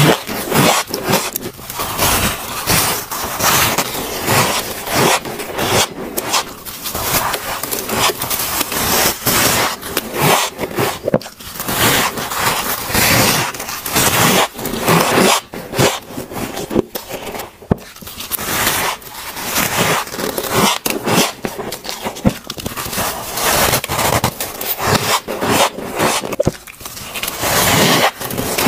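Soft, powdery freezer frost bitten and chewed close to a clip-on microphone: dense, continuous crunching and scraping, one bite after another.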